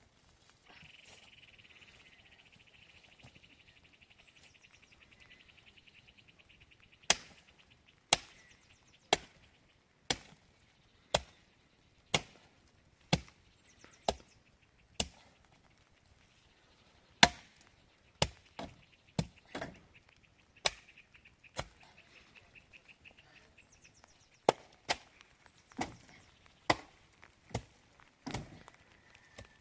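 Repeated sharp blows of a tool on wood, about one a second, starting some seven seconds in, pausing briefly, then resuming with some strokes in quick pairs. Before the blows start, a high, fast buzzing trill.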